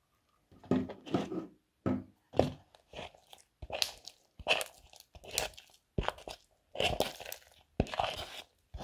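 Sticky mouse-trap-glue slime being worked and pulled in a plastic bowl, peeling apart in a series of short sticky crackles, roughly one every two-thirds of a second. The mass is still very sticky, not yet set into slime.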